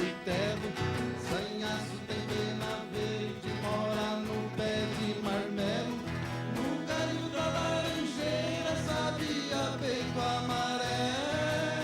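Moda de viola: a caipira folk song sung over a strummed viola caipira, with sharp percussive strokes running through it.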